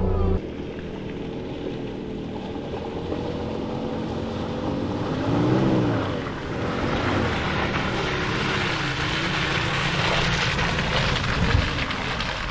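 Dual-cab four-wheel-drive ute driving through a muddy bog on a dirt track. Its engine revs rise and fall about halfway through, then a growing hiss of tyres working through mud and water builds toward the end.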